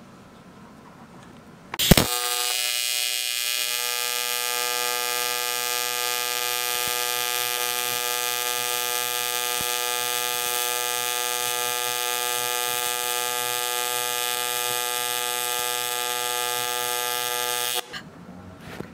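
AC TIG welding arc on aluminum from an HTP InverTIG 221 set to 125 Hz AC frequency: it strikes with a sharp crack about two seconds in, then buzzes steadily at that frequency with a hiss on top, and cuts off abruptly near the end.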